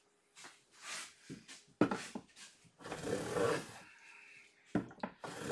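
Hand plane being pushed along the edge of a wooden board: a series of separate hissing strokes as it takes shavings, the longest about three seconds in.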